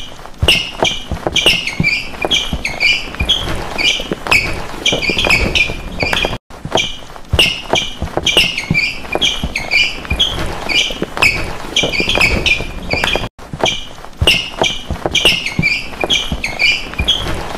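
Rhythmic percussive beat of sharp taps and thuds with short high squeaky chirps, several hits a second, cutting out briefly twice as the loop restarts.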